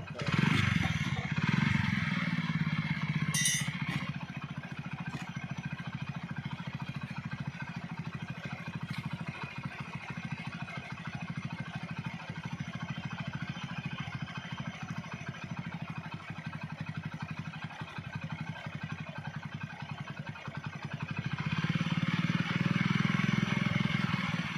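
Motorcycle engine running steadily, louder for the first few seconds and again near the end.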